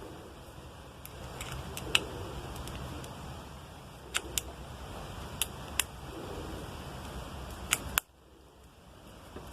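Sharp, separate clicks of small plastic and metal parts as a three-pin plug top is handled and fitted onto a power cord, about seven in all, several in quick pairs. The background hum cuts off abruptly near the end.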